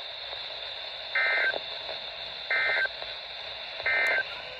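NOAA Weather Radio SAME end-of-message data signal: three short two-tone data bursts about a second apart, over steady radio hiss, marking the end of the weekly test broadcast.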